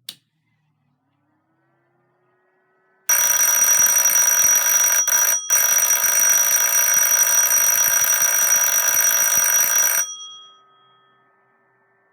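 Japanese railway ATS cab alarm bell, an electric vibrating bell, ringing continuously for about seven seconds, with a brief break partway through. It then stops and rings out over about a second. A click comes just at the start.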